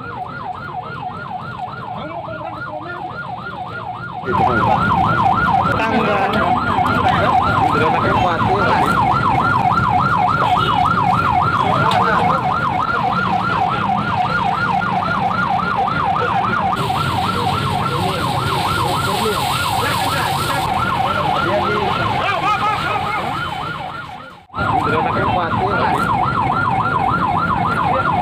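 Electronic emergency siren in fast yelp mode, sweeping up and down about five times a second. It gets louder about four seconds in and breaks off for an instant near the end, over traffic and street noise.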